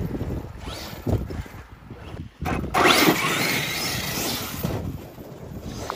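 Arrma Kraton 8S RC monster truck's brushless electric motor whining as the truck is driven, with a loud burst and rising whine about three seconds in as it accelerates hard, then fading near the end. Wind buffets the microphone.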